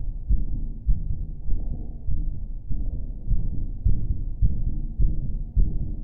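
A strong heartbeat: deep, muffled thuds repeating steadily about every 0.6 seconds, roughly 100 beats a minute.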